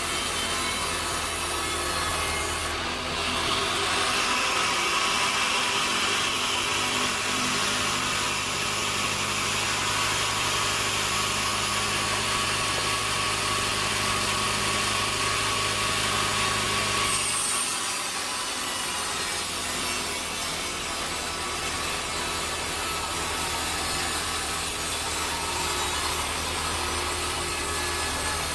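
Sawmill saw cutting through a log: a steady rasping saw noise that grows louder and brighter about three seconds in, then turns duller a little past halfway as the cut changes.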